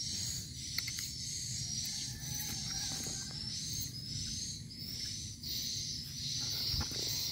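Small animal calls: short, high-pitched chirps repeating steadily about twice a second, over a low rumble.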